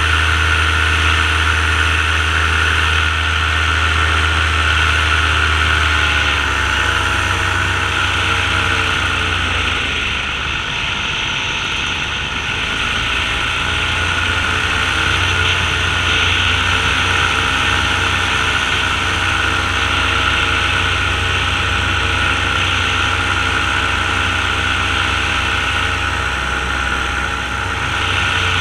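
Powered paraglider (paramotor) engine and propeller droning steadily in flight, with wind rushing over the microphone. The engine note sinks about six seconds in and comes back up a few seconds later.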